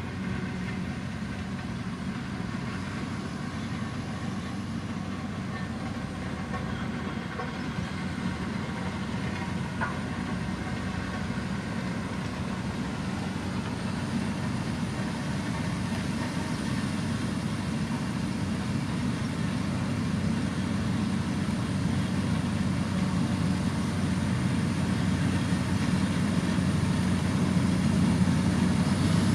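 Heavy road-construction machine's diesel engine running steadily at work, growing gradually louder.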